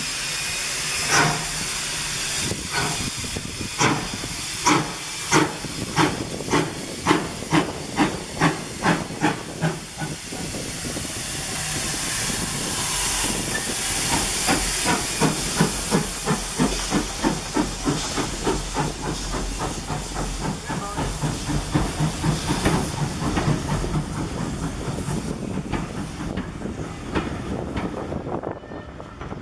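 Steam locomotive GWR 813, a 0-6-0 saddle tank, pulling away with a train: steady steam hiss and regular exhaust chuffs, slow at first and quickening as it passes, the hiss loudest as the engine goes by.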